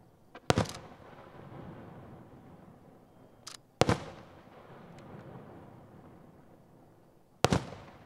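Aerial firework shells bursting: three loud bangs about three and a half seconds apart, each a quick double crack, with a smaller pop just before two of them and a rumbling echo in between.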